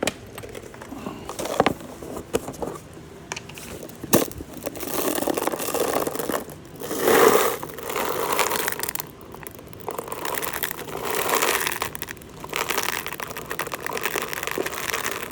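Plastic packaging crinkling and rustling in irregular spells as things are handled, with scrapes and a couple of sharp clicks, the first about a second and a half in.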